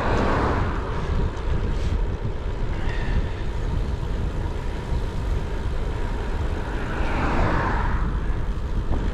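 Wind rushing over the microphone of a moving bicycle, a steady low rumble. Two passing vehicles swell up and fade away, one about a second in and one near the end.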